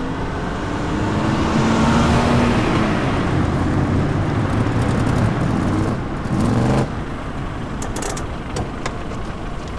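A car engine running with road noise, its low hum wavering in pitch; it drops away suddenly about seven seconds in, leaving a quieter background with a few short clicks.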